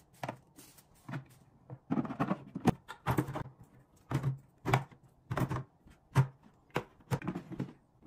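Irregular light clicks, clacks and scuffs of hard plastic as eggs are set into a plastic egg tray and small plastic drink bottles are lined up in a clear plastic storage box.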